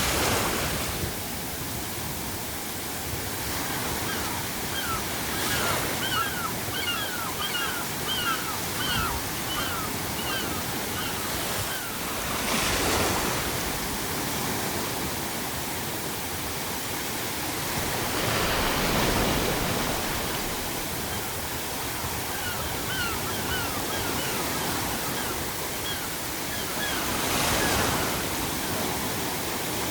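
Ocean waves breaking in slow swells every six to eight seconds over a steady pink-noise hiss. Seagulls call in two runs of short, quick notes, about two a second: one early and one near the end.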